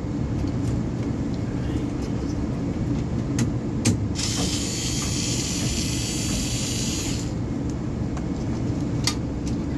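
Steady low machine drone, with a high hiss for about three seconds in the middle and a few small clicks.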